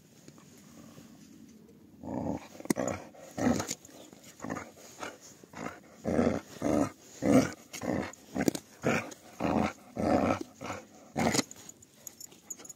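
Akbash puppy growling in a run of short, repeated growls, about two a second, starting a couple of seconds in.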